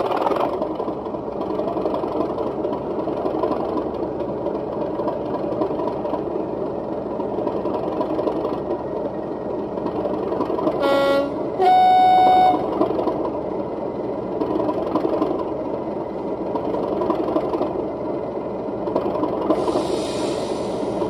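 Model diesel locomotive's DCC sound decoder playing through an EM2 speaker: the engine runs steadily. About eleven seconds in comes a two-tone horn, a short low note followed by a longer, higher steady one. A hiss sounds near the end.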